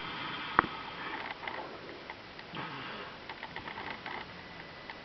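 An infant snoring softly in sleep, short breathy snores coming every second or so. A single sharp click sounds about half a second in.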